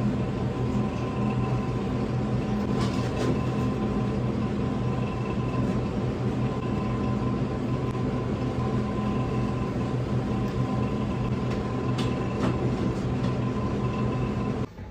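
Steady low machine drone with a faint high whine from running kitchen equipment, with a few light clicks of a knife against a plastic cutting board as fish fillets are cut. The drone cuts off suddenly near the end.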